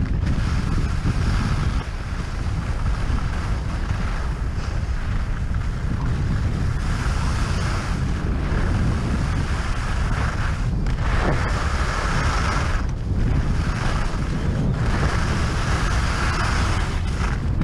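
Wind buffeting a GoPro Hero 5 Session's microphone during a fast ski descent, a heavy steady rumble, with the hiss of skis carving over groomed snow swelling and fading with each turn.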